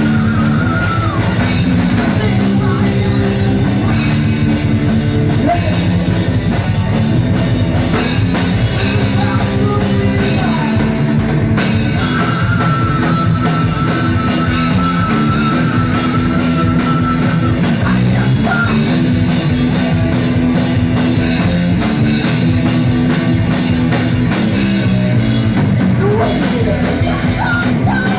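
Loud rock band playing, with drum kit and guitars. A long held high note stands out over the band for several seconds in the middle.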